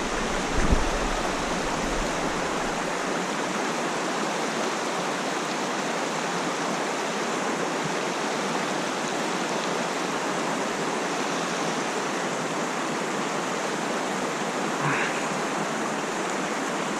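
Mountain stream water rushing steadily over rocks, with a brief low knock just under a second in.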